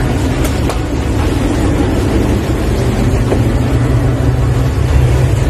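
A boat's engine running steadily: a loud, even low rumble.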